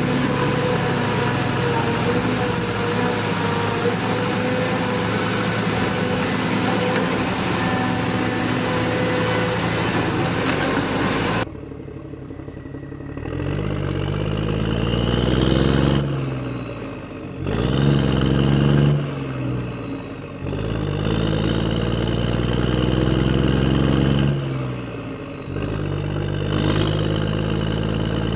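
A motor running steadily. After an abrupt change about eleven seconds in, it speeds up and slows down several times, its pitch rising and falling with each push.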